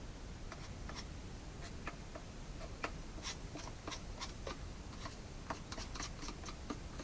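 Irregular light scrapes and clicks, several a second, of sawdust and debris being cleaned out of an opened electric chainsaw's bar and sprocket housing by hand.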